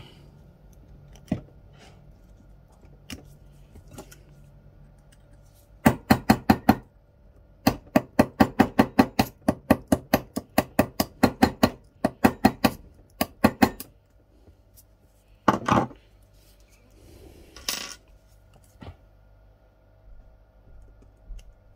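A thin metal tool worked quickly back and forth in a slot of a hub motor's laminated steel stator, clicking metal on metal about five times a second for several seconds, then a few single clicks. It is scraping the slot clean so a Hall sensor will seat in it.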